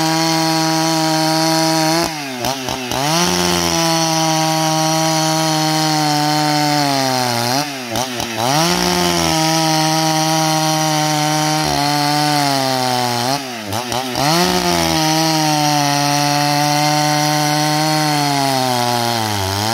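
Husqvarna 281 XP two-stroke chainsaw at full throttle ripping a log lengthwise along the grain. The engine's revs sag briefly three times under the cut and climb straight back.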